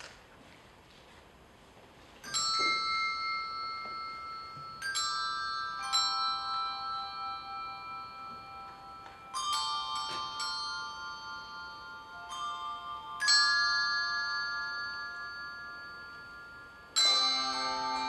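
Handbell choir ringing slow chords, each struck together and left to ring out and fade. After about two seconds of quiet the first chord sounds and about seven more follow, the last one, near the end, fuller and deeper with lower bells added.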